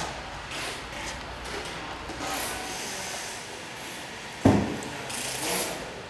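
Gloved hands rubbing and pressing a felt sound-absorbing jacket around an air-conditioner compressor: scattered scraping and rustling, with one sharp knock about four and a half seconds in.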